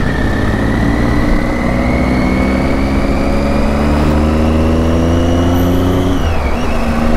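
Triumph Tiger 800's 800 cc inline three-cylinder engine pulling under acceleration, its exhaust note rising slowly for about six seconds; it dips briefly as the rider shifts up a gear, then climbs again.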